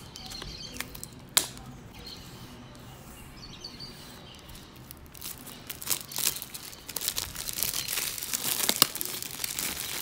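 Clear plastic shrink-wrap being torn and peeled off a small cardboard product box, crinkling. A sharp click comes a little over a second in, and the crinkling turns dense and continuous from about halfway.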